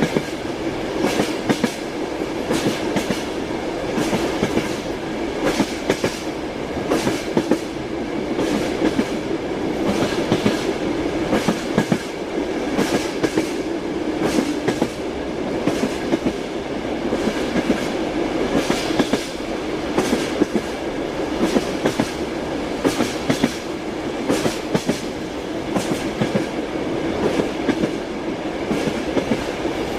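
Train running along the track: a steady rumble of the wheels, with the repeated clickety-clack of the wheels going over rail joints.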